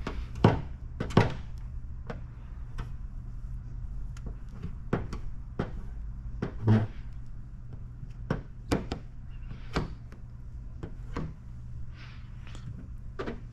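Irregular light clicks and knocks, about a dozen, from squeegee and hand work on paint protection film on a car fender, over a steady low hum.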